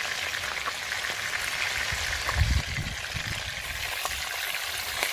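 Lobster tails frying in hot oil in a pot: a steady sizzle with scattered small crackles. A brief low rumble comes about halfway through.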